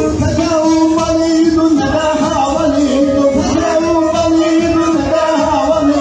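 Live wedding band music played loud through the hall's speakers for a folk line dance: a wavering, sustained melodic lead and a man singing over a steady beat.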